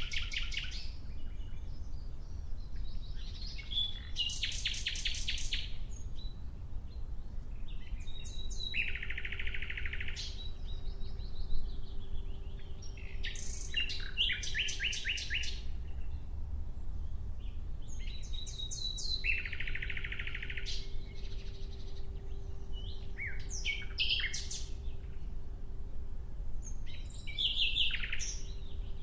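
Nightingale singing in phrases of a few seconds with short pauses between them. The phrases mix very fast runs of repeated clicking notes with fuller, lower whistled notes.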